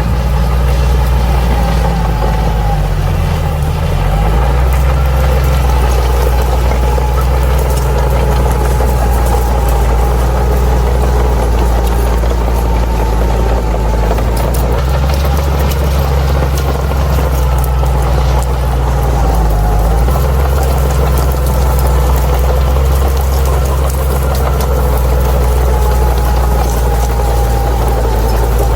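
Crawler bulldozer's diesel engine running steadily with a higher whine over it; the engine note sags briefly about three seconds in and again near twenty seconds in.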